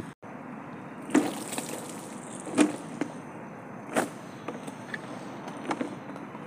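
A few separate light knocks and slaps as wet trousers are laid out and spread flat on a board by hand, over a steady background hiss.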